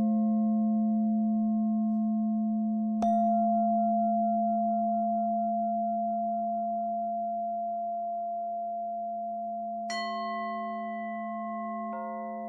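Singing bowls ringing in a steady low hum with several overtones. The bowls are struck again about three seconds in and about ten seconds in, with a lighter strike near the end; each strike adds high ringing that slowly dies away.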